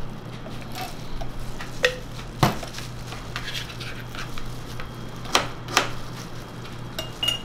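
A knife tapping on a plastic cutting board while strawberries are diced, with a few sharp clinks of metal kitchen utensils, over a steady low hum.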